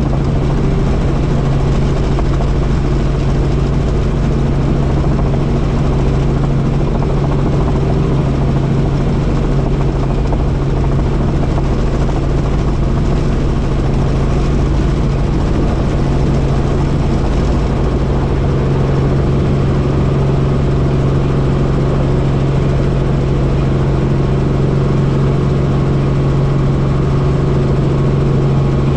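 Helicopter in flight, its engine and rotors making a loud, steady drone with a strong low hum that holds constant throughout.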